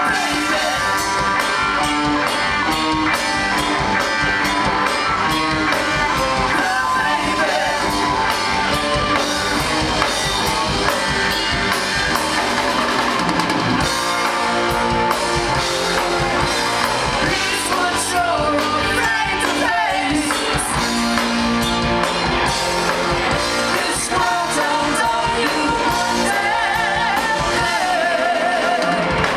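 Live rock band playing: electric guitars, bass and drums, with the lead singer singing into a microphone.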